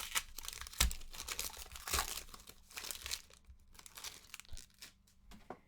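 Foil trading-card pack wrapper crinkling and tearing as it is ripped open, with quick rustles and clicks of the cards being handled. The crinkling is busiest for the first three seconds or so, then thins to scattered clicks.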